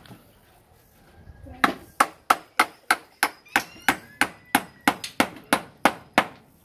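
Claw hammer nailing chicken wire to a wooden post: after a short pause, a steady run of about fifteen sharp strikes, about three a second.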